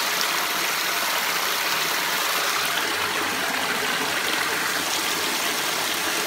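Water jetting from a row of holes in a PVC inlet pipe and splashing onto the fleece of a homemade fleece filter, a steady rushing splash.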